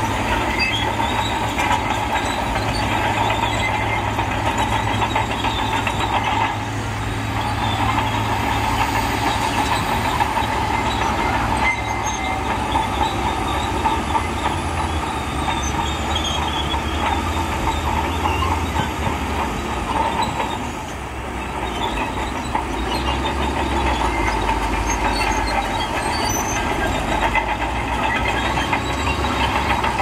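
Heavy diesel dump truck running with its bed tipped up, unloading sand: a steady engine drone with a rattling rumble over it. The engine's low note shifts lower in the second half.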